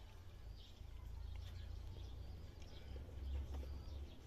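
Faint low background rumble with a few faint bird chirps.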